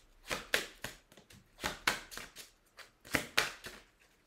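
A small deck of tarot cards being shuffled by hand, with six sharp card swishes in three pairs.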